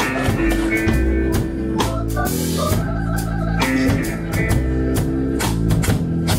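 Live band playing an instrumental rock passage: a drum kit keeps a steady beat under held chords.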